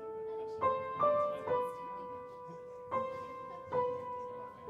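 Piano playing a slow, simple melody one note at a time, each note struck and left to ring, five notes in all.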